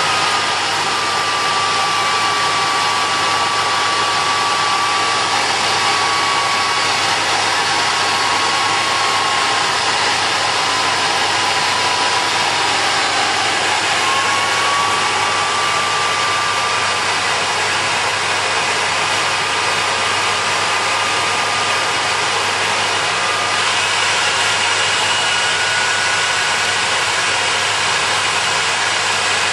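Homemade jet engine built from a car turbocharger with a cocktail-shaker combustion chamber, running at low power: a loud, steady rushing noise with a turbine whine that wanders in pitch. The whine sags about ten seconds in, rises again around fourteen seconds, and climbs higher near the end. The speed is unstable, which the builder puts down to too much diesel and too little petrol/methanol in the fuel mix.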